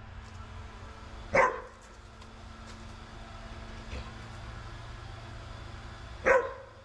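A dog barks twice, two single short barks about five seconds apart, over a steady low hum.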